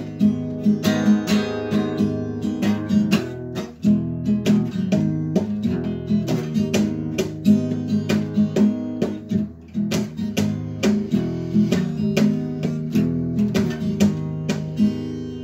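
Acoustic guitar strummed in a steady rhythm, chords ringing with no voice over them.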